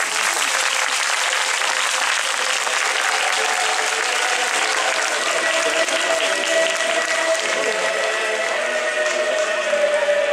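Crowd applauding steadily, with a few held musical tones faintly underneath.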